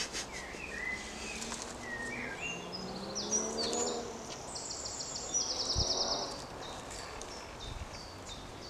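Woodland birds chirping, with short high calls throughout and a fast trill of repeated notes a little past halfway. A single soft thump comes near the same moment.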